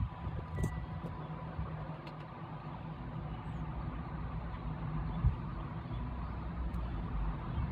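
Low, steady background rumble, with one brief low thump about five seconds in.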